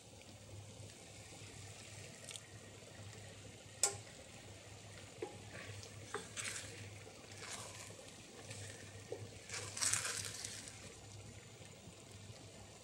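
Arborio rice being stirred in a saucepan as it absorbs simmering stock: faint swishes and scrapes of the spoon through the wet rice. There is a sharp tap of the spoon against the pan about four seconds in and a louder swish about ten seconds in.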